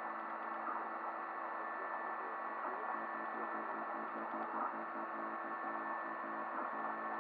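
3D printer running a print: its stepper motors whir in several steady tones under the even hiss of the hotend cooling fan.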